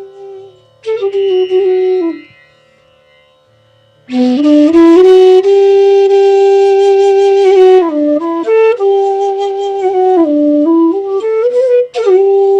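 Bansuri (North Indian bamboo flute) playing a slow solo melody. A held note fades, a short phrase follows, and after a pause of about two seconds comes a long loud note that slides up into pitch. It then steps down and back up with bends between the notes.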